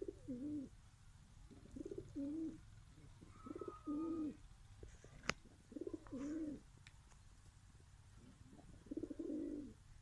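Domestic pigeons cooing: five low coos spaced about two seconds apart. One sharp click comes a little after halfway.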